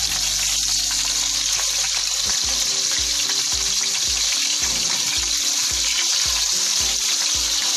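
Beef chapli kababs sizzling in hot frying oil in a pan as they are turned over. A steady sizzle runs throughout, over background music whose regular bass beat comes in about two seconds in.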